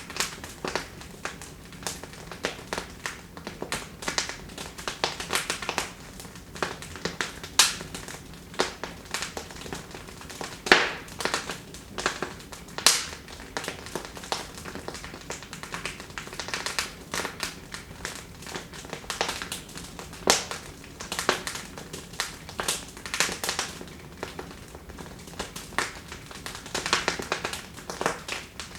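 Wood fire burning in a fireplace: a steady run of irregular crackles and snaps over a soft hiss, with a few louder pops.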